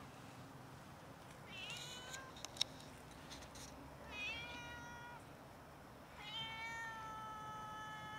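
Hungry stray cats meowing: a short meow about two seconds in, another about four seconds in, then one long drawn-out meow from about six seconds in.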